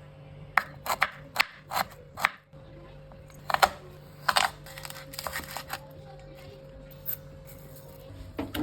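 Kitchen food-prep sounds: a run of sharp, irregular clicks and knocks over a steady low hum.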